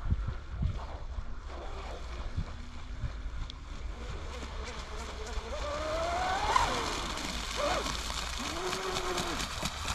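Pro Boat Blackjack 24 RC catamaran's stock 2200 kV brushless motor whining at speed on a full-throttle pass. The whine rises to a peak about six and a half seconds in, with a shorter rise and fall near the end.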